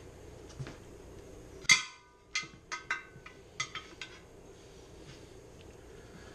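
Long screwdrivers used as tire irons clanking against the mower rim while prying the tire bead off. There is one loud ringing clank a little under two seconds in, then several lighter metallic clinks over the next two seconds.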